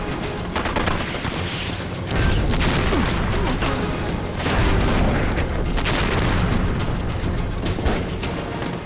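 Battle-scene film soundtrack: dramatic music over a heavy low rumble that swells about two seconds in and again around the middle, with scattered gunshots.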